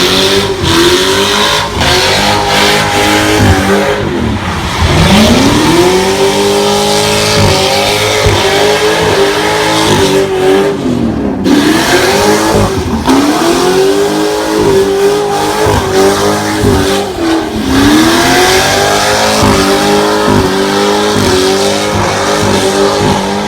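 Mustang engine revving hard during a burnout, with tire squeal. About four times the revs climb quickly and hang high in a rapid stutter, under a constant hiss.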